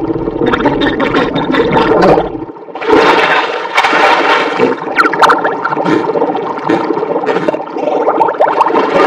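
Cartoon sound effect of rushing, flushing water. The deep rush dips briefly about two and a half seconds in, then comes back higher and brighter.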